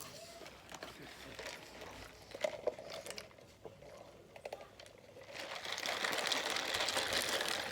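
Rustling and crinkling of fast-food packaging being handled: scattered small crackles at first, then a denser, louder rustle about five seconds in.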